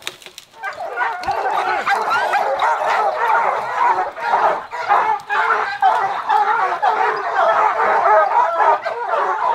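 A pack of bear hounds barking and baying together, many voices overlapping without a break after a brief lull at the start.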